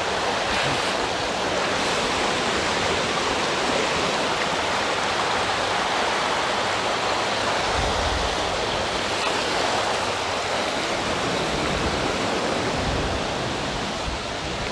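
Steady rushing of flowing stream water, an even hiss-like wash with no change in level.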